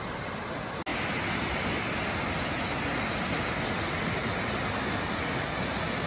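Steady rushing of Upper Whitewater Falls, a tall waterfall cascading over rock. Just under a second in, the sound cuts out for an instant, then comes back slightly louder and brighter.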